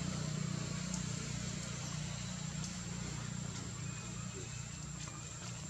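Steady low engine rumble with a thin, high, steady whine above it.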